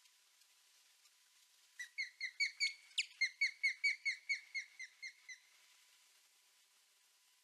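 Female osprey giving a run of about fifteen short, downward-slurred whistled calls, about four a second, lasting some three and a half seconds: alarm calling after a great horned owl took her chick from the nest.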